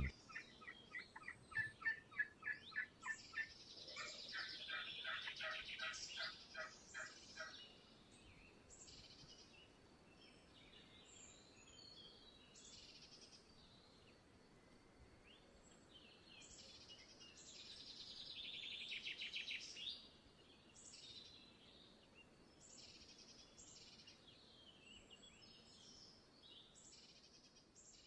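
Male greater sage-grouse display sounds, faint: a rapid run of pulses in the first three seconds, then rustling stretches, the loudest about two-thirds of the way through, with short high chirps scattered throughout.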